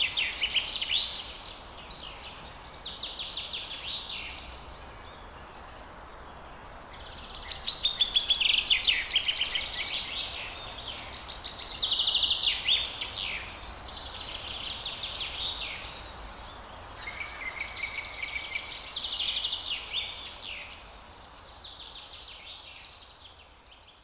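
Forest birds singing: repeated phrases of quick, high chirps and trills, one bout after another, over a steady background hiss, fading down near the end.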